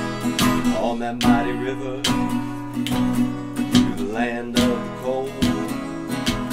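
Background music: a strummed acoustic guitar playing a steady country-style rhythm.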